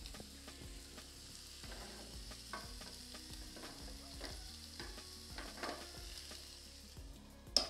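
Meat toppings frying in an oiled pan with a steady sizzle, while a utensil stirs and scrapes them around, knocking against the pan now and then, with one sharper clack near the end.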